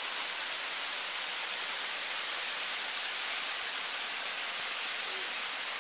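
A small waterfall cascading over boulders in a mountain brook: a steady, even rush of water.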